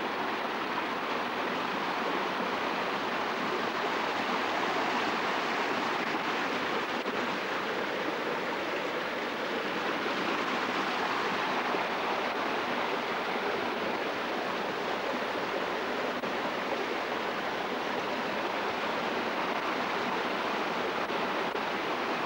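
River water rushing over rocks in a small rapid, a steady rushing noise.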